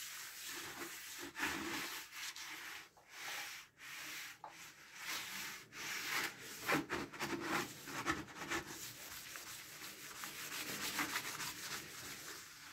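A hand rubbing finish into the outside of a turned alder hollow form: irregular swishing of skin on wood, with a few brief pauses.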